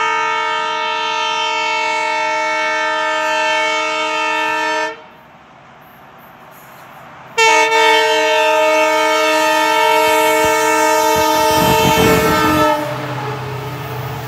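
Indian Railways locomotive horn sounding two long, steady blasts about two and a half seconds apart. A low train rumble rises near the end of the second blast and continues after it.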